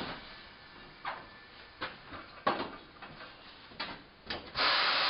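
Several separate knocks and clanks from a tire and the lever of a manual tire changer being worked while the tire's bead is broken. From about four and a half seconds in, a loud steady hiss sets in.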